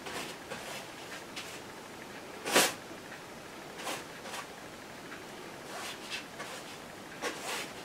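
Wide flat brush scrubbing oil paint onto a canvas: short scratchy strokes at uneven intervals, the loudest about two and a half seconds in.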